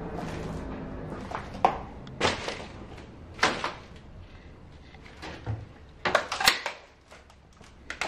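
Irregular knocks and scuffs in a small room, with a cluster of sharp ones about six seconds in. A low steady hum dies away in the first second.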